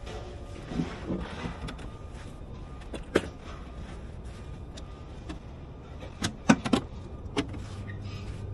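A plastic pail being handled and its lid pried open: a few sharp plastic clicks and knocks, the loudest a quick cluster a little past the middle, over a steady low rumble.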